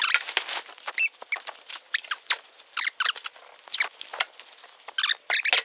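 Clear plastic wrap being pulled and crumpled off a large subwoofer cabinet, crackling and rustling in quick, irregular bursts.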